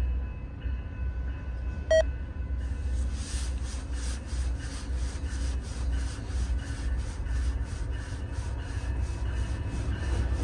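A short sharp beep about two seconds in, then a grade-crossing warning bell starts ringing, a rapid even ding about four times a second, signalling the approaching Amtrak train. A low rumble runs underneath.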